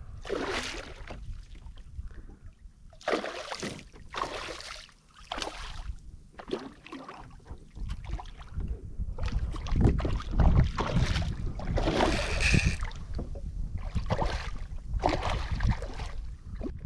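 Water splashing and sloshing against a kayak in about a dozen short, separate swishes, over a steady low wind rumble on the microphone.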